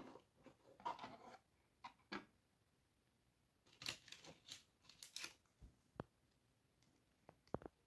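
Faint rustling and light plastic taps as a toy dollhouse set and its clear plastic furniture pack are handled in a cardboard box, with a couple of sharp clicks near the end.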